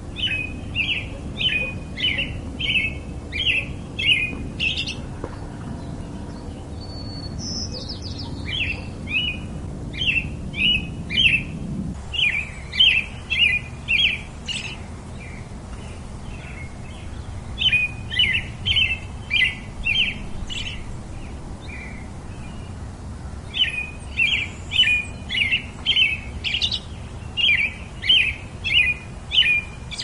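European robin singing in phrases of short, quick chirping notes, about three a second, each phrase lasting a few seconds with pauses between.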